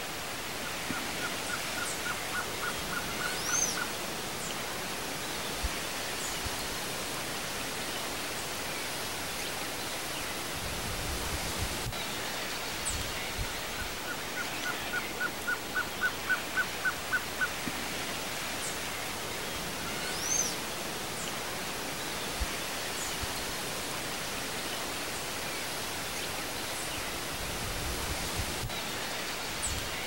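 Male blue-crowned trogon singing two runs of evenly spaced, soft cooing notes, roughly four a second. The first run comes near the start; the second, about halfway through, is longer and builds in loudness. A steady hiss of background noise runs under it.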